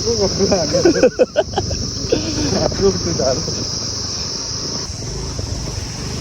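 A steady, high-pitched chorus of insects, crickets or cicadas, with indistinct voices talking over it for the first few seconds.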